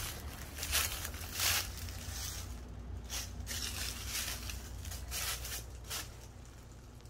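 Footsteps on dry leaves and debris, a string of short, uneven steps that die away about six seconds in, over a steady low rumble.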